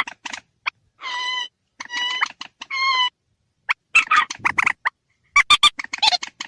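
Recorded lure call of a rail (burung mandar). About a second in come three drawn-out nasal notes, then two bursts of quick sharp staccato notes.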